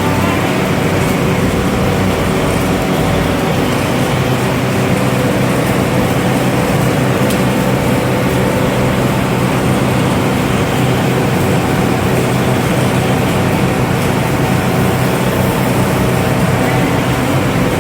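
Machinery running with a steady hum and a dense mechanical noise, unchanging in pitch and loudness.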